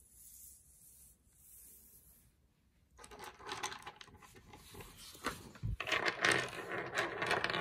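Quiet at first; about three seconds in, small plastic counting bears start clattering and clicking against each other and a hard tabletop as they are handled and set down.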